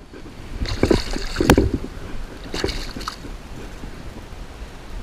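Light water splashes and handling knocks close by, about four of them in the first three seconds, as wet hands come up out of the water and take hold of a lure, over a low steady wash of water.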